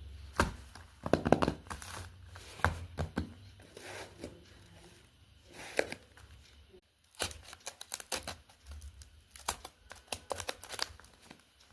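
Packaging being torn open and crinkled by hand, in irregular sharp rustles and crackles, with a brief break about seven seconds in.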